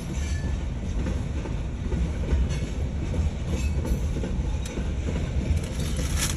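Freight train cars rolling past: a steady low rumble of steel wheels on the rails with clickety-clack over the rail joints, and a brief sharp high-pitched noise near the end.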